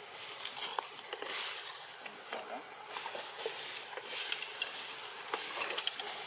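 Outdoor background: faint, indistinct voices under a steady high hiss, with scattered light clicks and rustles.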